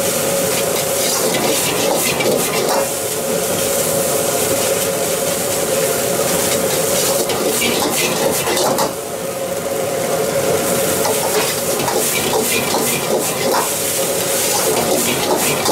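Egg fried rice sizzling in a wok over a gas burner, with a metal ladle scraping and clanking against the wok again and again as the rice is stirred and tossed.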